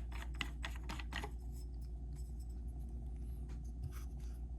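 Rapid light clicking, about six clicks a second, from small metal airgun parts being handled as a moderator is screwed onto the barrel shroud; it stops a little over a second in, leaving a low steady hum with a few faint ticks.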